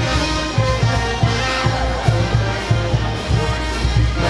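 Band music with brass over a steady, pulsing bass beat.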